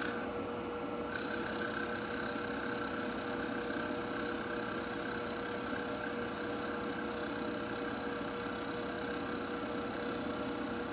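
Small engineer's lathe running under power with a steady whine, its cutter turning down a spinning poplar dowel.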